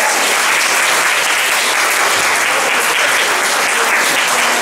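Audience applauding steadily, a dense, even clapping that holds its level.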